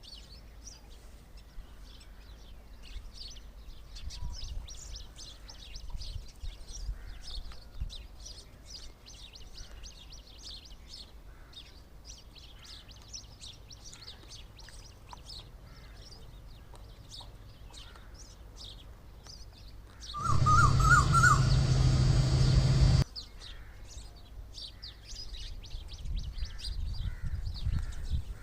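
Many small birds chirping constantly in short, high calls. About twenty seconds in, a much louder noisy sound with a quick trilling call cuts in for about three seconds and stops abruptly.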